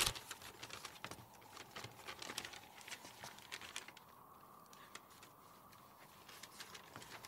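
Faint rustling and scattered soft clicks and taps of people moving about: a large sheet of paper being handled and light footsteps. The sounds thin out to near quiet a little past the middle, then pick up again near the end.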